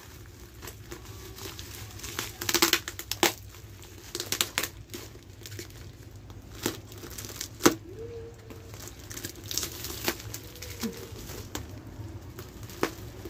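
Plastic film and plastic bags crinkling and tearing as they are cut open with scissors, with several sharp clicks scattered through.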